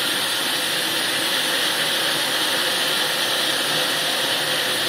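Steady machinery noise of a food-processing line: an even, unbroken hiss with a faint hum under it.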